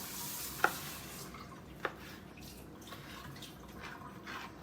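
Cubes of leftover pork dropped into a pan: two sharp knocks and a few fainter ticks, with a hiss that dies away about a second in.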